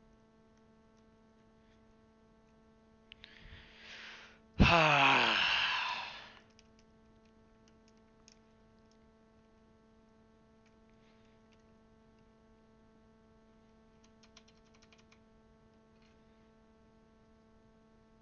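A man draws a breath and lets out a loud, groaning sigh that falls in pitch. A few faint plastic clicks follow later, over a steady electrical hum.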